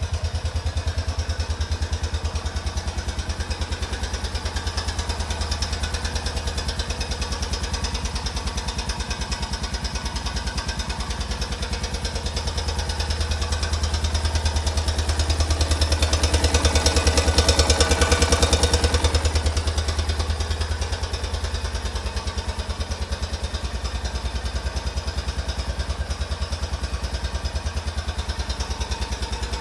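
2004 Honda Rincon ATV's single-cylinder engine idling cold shortly after start-up, with a knocking noise that shows only while the engine is cold and goes away once warm. The engine swells louder for a few seconds around the middle, then settles back.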